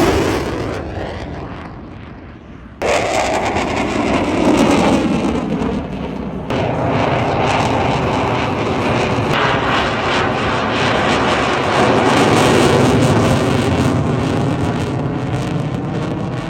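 Loud aircraft engine noise from fixed-wing aircraft at an airshow, a steady roar that changes abruptly about 3, 6.5 and 9.5 seconds in as one clip cuts to the next.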